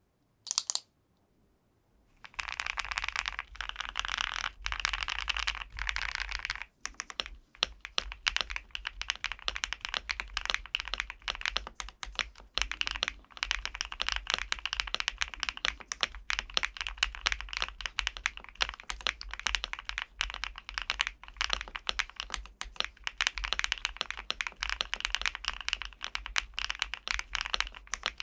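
LUMINKEY75 V2 gasket-mounted aluminium mechanical keyboard being typed on quickly and continuously, a dense run of key clicks. A single keystroke comes first, then a short pause, and the fast typing starts about two seconds in.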